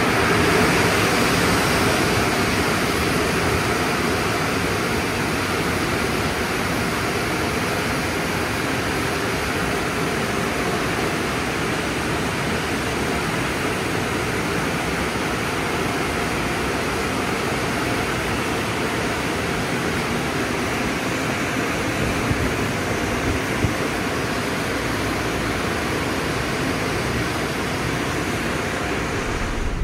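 Car wash exit dryers: large electric blowers driving a steady rush of air over a vehicle as it passes beneath.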